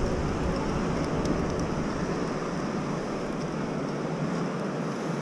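Steady rush of sea surf breaking on rocks, mixed with wind.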